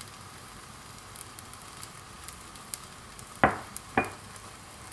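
Jidan guanbing (egg-filled pancake) dough sizzling gently in an oiled nonstick frying pan, with faint scattered crackles. About three and a half seconds in, two short strokes are heard as a brush spreads oil over the top.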